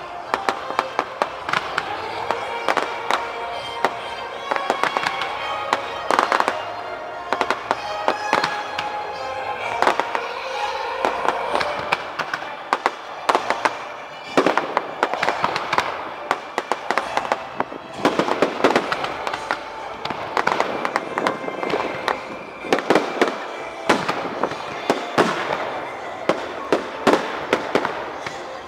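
Aerial fireworks going off in quick succession: many sharp bangs overlapping with crackling.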